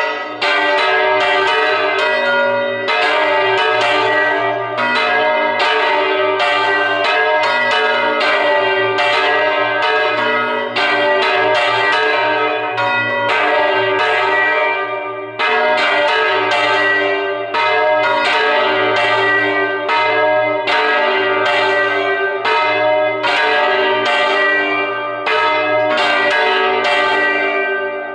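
Several church bells rung by hand in a festive Spanish peal ('parada de campanas'), their strokes following on at about two a second and overlapping in a continuous ringing, with a steady low hum beneath. The ringing falters briefly about fifteen seconds in, then carries on.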